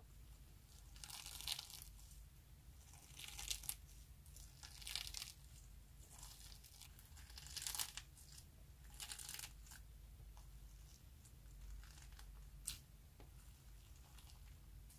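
Clear slime loaded with star-shaped sequins being kneaded and pressed by hand, giving short crinkly, crackling squishes every second or two, fainter in the last few seconds, with one sharp click about two-thirds of the way through.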